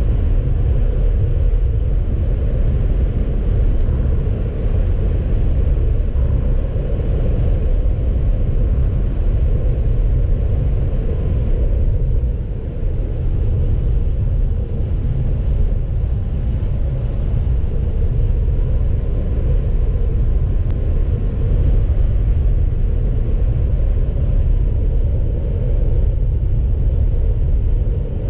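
A car driving: a steady low rumble of road, wind and engine noise.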